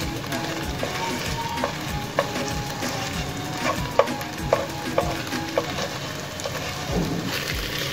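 Beaten eggs sizzling in oil in a nonstick pan as a spatula scrambles them, with light taps of the spatula against the pan.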